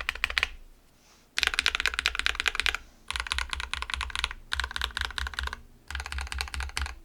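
Fast typing on an LZ-GH v1 custom mechanical keyboard with an aluminum plate, lubed JWK Alpaca v2 linear switches and PBT keycaps, damped by a sorbothane sheet between the PCB and the case. The key presses come in rapid runs of a second or so, broken by short pauses.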